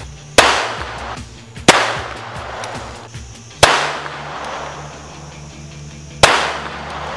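Pistol shots fired slowly and deliberately, four in all at uneven gaps, each a sharp crack ringing out in an echo: aimed precision fire.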